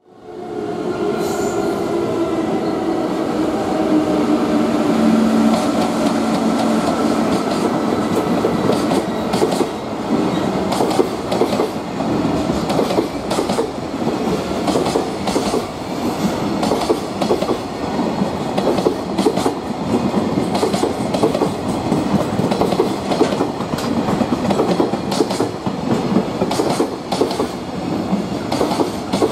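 Long freight train passing: a steady hum with several tones for the first several seconds as the electric locomotive goes by, then a string of container flat wagons rolling past, their wheels clacking rapidly over the rail joints.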